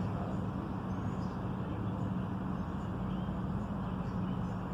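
A steady low mechanical hum, one even tone, with a few faint short high chirps over it.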